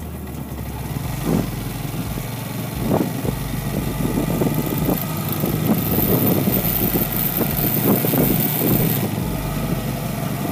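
Motorcycle engine running on the move, with uneven rumbling and crackling road and wind noise.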